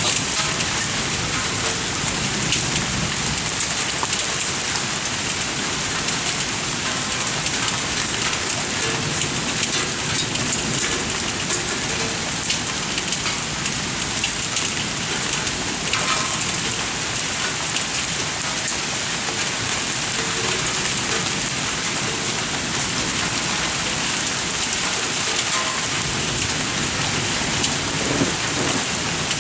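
Heavy thunderstorm rain pouring steadily, with scattered sharp ticks of small hailstones striking surfaces.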